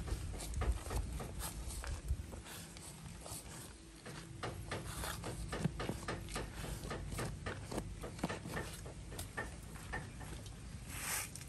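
Hands pressing and patting loose, gritty soil in a plastic tub, giving irregular crunching taps several times a second. A short rustle comes near the end.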